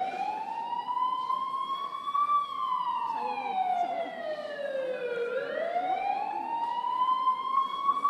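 Recorded ambulance siren sound effect with a slow wail: one tone that climbs, falls away from about two seconds in to about five seconds in, then climbs again to a peak near the end.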